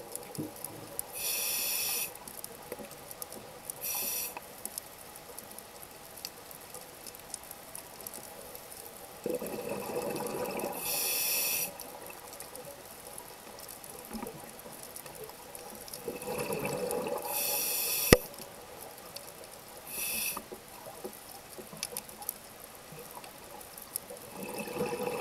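Scuba diver breathing through a regulator underwater: short hissing inhalations alternate with longer bubbling exhalations, several breaths slowly spaced. There is one sharp click about two-thirds of the way through.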